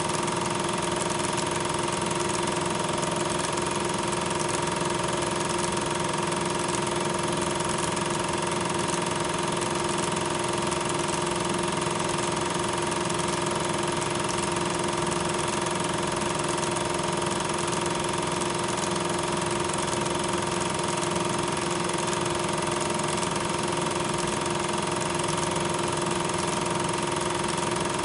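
8mm film projector running: a steady mechanical whir with a constant hum.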